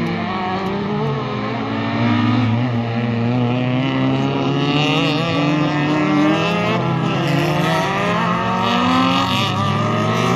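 Several 1.6-litre race cars' engines revving hard as the cars pass one after another, their pitches overlapping and rising and falling with throttle and gear changes.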